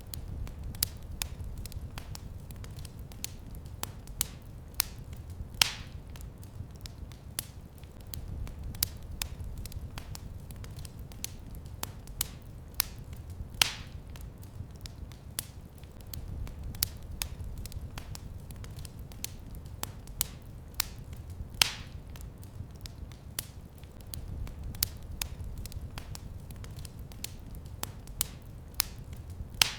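Fireplace fire crackling: frequent small sharp pops over a low steady rumble, with three louder snaps spaced about eight seconds apart.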